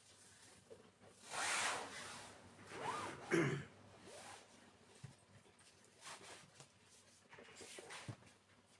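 Cloth rustling and rubbing in a few short bursts, the two loudest in the first four seconds, typical of curtain fabric being handled and pulled.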